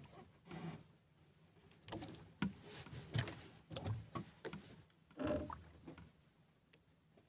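Faint, irregular knocks and rustles of a fishing handline being hauled in hand over hand aboard a small wooden outrigger boat, with a hooked dorado on the line.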